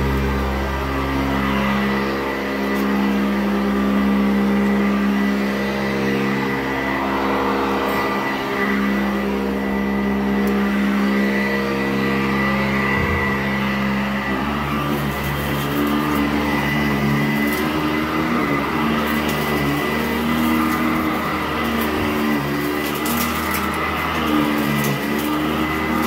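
Sanitaire SC899 direct-air commercial upright vacuum running on carpet: a steady motor hum with a thin high whine, its tone shifting a little about halfway through as the nozzle is pushed over the pile. In the second half, sharp crackles of grit crunching through the fan.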